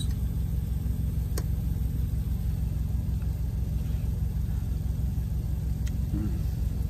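Semi truck's diesel engine idling, a steady low rumble heard inside the cab, with a light click about a second and a half in.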